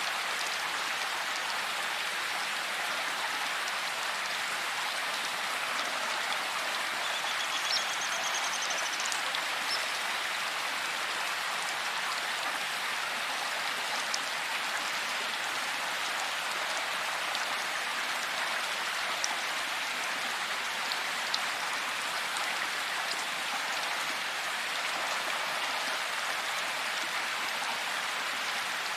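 Steady rain falling in a forest, an even hiss of drops with a few louder single drips. A brief faint high chirp about eight seconds in.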